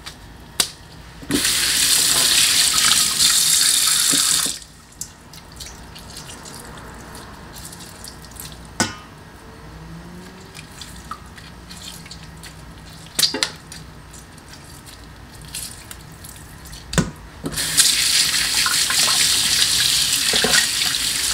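Kitchen tap running into a stainless steel sink, splashing onto chicken wings in a metal bowl. The water runs briefly at first, then stops, leaving a quieter stretch with a few knocks from handling. It starts again near the end.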